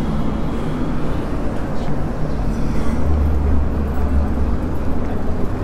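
Busy city street ambience: steady traffic noise with a low vehicle engine drone swelling about three seconds in.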